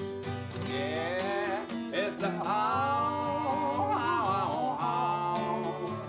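Acoustic guitar strumming a country song, with a man's voice singing a long, sliding line from about two seconds in.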